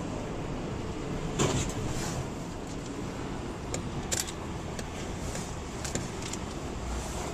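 Motor vehicle running steadily, with a sharp knock about a second and a half in, another about four seconds in, and a few fainter clicks.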